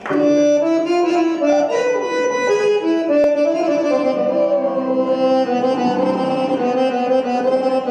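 Recorded oriental belly dance music starting up: a melody of held and sliding notes over lower sustained notes.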